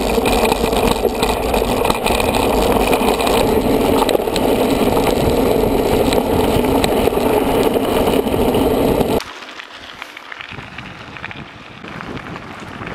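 Mountain bike riding a gravel forest track, heard through the rider's action camera: a steady rumble of tyres on gravel and the bike's rattle. The noise is loud for about the first nine seconds, then drops abruptly to a quieter version of the same riding noise.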